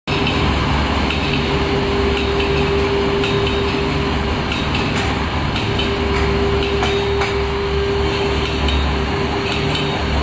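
CNC bamboo toothbrush-making machine running: a steady low hum with a held tone, and light, irregular clicks and knocks from its mechanism.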